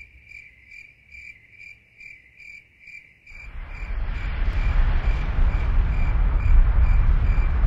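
Cricket chirping steadily, a little over two chirps a second. About three seconds in, a loud low rushing roar swells up and covers it, with the chirping still faintly heard over it.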